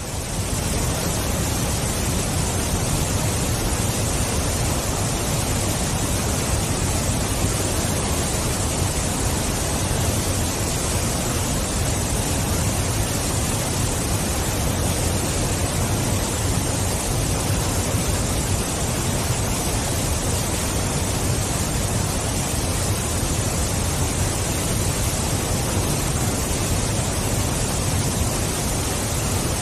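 Waterfall: a steady, unbroken rush of falling water at an even level.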